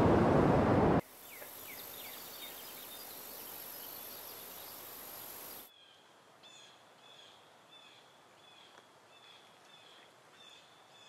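Surf noise that cuts off about a second in, giving way to forest ambience with a steady high insect buzz and scattered bird chirps. From about halfway it drops to a faint bed in which a small bird calls over and over, about twice a second.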